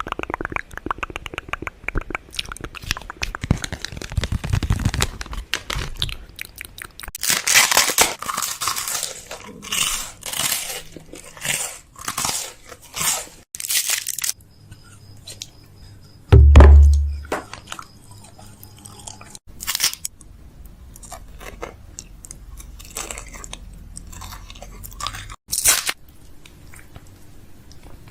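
Repeated close-up crunching and crackling in short bursts, with one loud, heavy low thump about sixteen seconds in.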